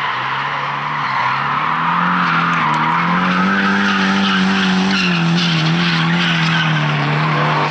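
Nissan S14 drift car sliding sideways under power, its tyres screeching continuously. The engine is held high in the revs, its pitch climbing about two seconds in and dipping slightly later on.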